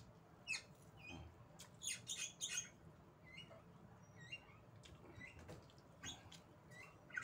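A small bird chirping outside in short, repeated hooked calls, about one a second, with some clicks and smacks of eating close by, loudest around two seconds in.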